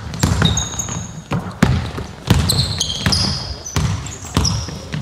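Basketball dribbled hard on a sports-hall floor, one sharp bounce about every two-thirds of a second with a short echo after each, and basketball shoes squeaking on the floor between bounces.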